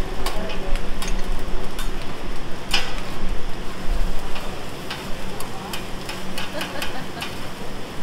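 Rice sizzling on a hot steel teppanyaki griddle while metal spatulas scrape and tap against the plate in quick, uneven clicks.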